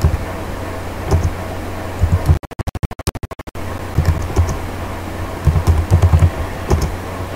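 Computer keyboard being typed on in irregular keystrokes over a steady electrical hum. A little past two seconds in, the audio stutters, cutting in and out rapidly for about a second.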